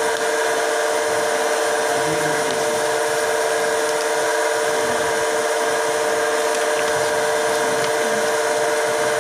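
A steady machine hum: a constant whine with a hiss over it, unchanging in level and pitch.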